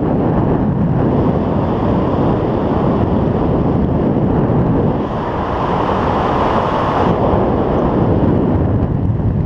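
Wind rushing over the camera microphone as the speed wing flies fast through the air, a loud steady roar with a hissier stretch between about five and seven seconds in.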